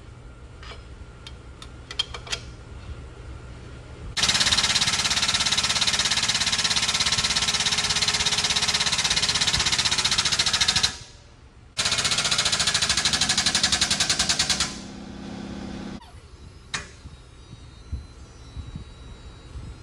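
Air-over-hydraulic pump of a 50-ton pneumatic/hydraulic shop press running with a loud, rapid pulsing as it drives the ram down to dimple a lightening hole in aluminum sheet. It runs for about six seconds, stops for under a second, then runs again for about three. A few light metal clicks come before it starts.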